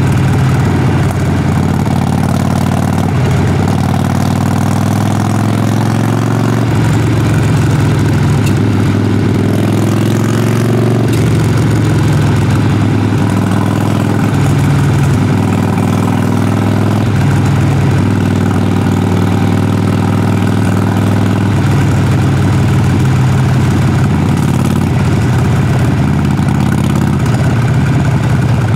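Harley-Davidson Sportster Forty-Eight's air-cooled 1200 cc V-twin running under way, its exhaust note rising and falling several times as the engine speeds up and drops back through the gears.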